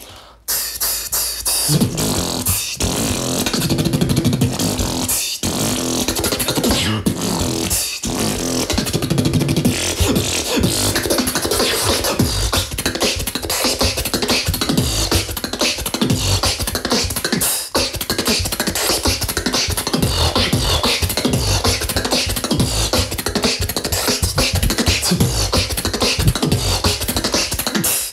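Solo beatboxing in a fast, technical drum and bass style: dense, rapid mouth-made percussion that starts about half a second in and breaks only for a few split-second pauses.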